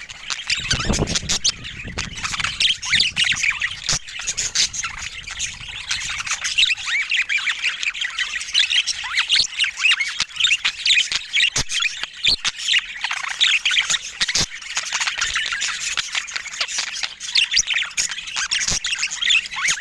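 Budgerigars chattering and warbling, a dense run of quick, high chirps and squawks, with scattered sharp clicks and a brief low rumble about a second in.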